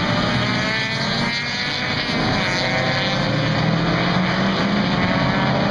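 Race car engines running hard on the circuit, several engine notes overlapping and slowly rising in pitch as the cars accelerate. The sound cuts off abruptly at the end.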